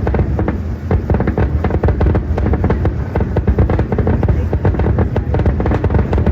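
Fireworks display going off in quick succession: a dense run of sharp bangs and crackles, several a second, over a continuous low rumble.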